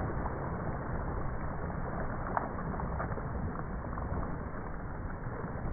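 Steady churning and splashing of water as several dogs swim together, paddling hard and kicking up spray. A single sharp click comes about two and a half seconds in.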